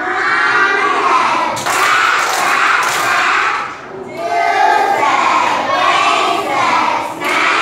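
A class of young children singing an action song in unison with their teacher, with a few thumps from hands slapping bodies or desks during the motions.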